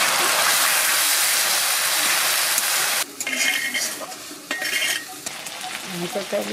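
Chicken pieces sizzling in hot oil in a steel wok, stirred with a spatula. About three seconds in the sizzle cuts down to a quieter, patchier frying sound.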